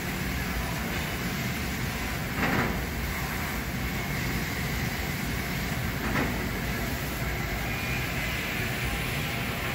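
Amada ENSIS 3015 AJ fiber laser cutting machine running, a steady mechanical rushing noise. Two short louder sounds rise out of it about two and a half and six seconds in.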